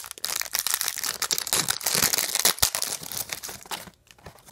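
Trading-card pack wrapper crinkling as it is handled and pulled off the cards; the crackling stops about four seconds in.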